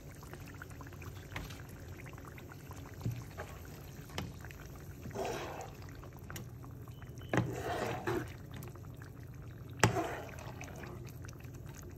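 A metal spoon stirring a pan of thin, brothy sauce: the liquid sloshes in a couple of louder swishes midway, and the spoon clinks against the pan now and then.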